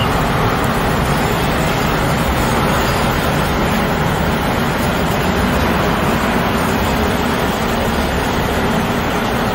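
Four-engined Airbus A380 jet airliner rolling out on the runway after touchdown, its engines and airframe giving a loud, steady rushing noise.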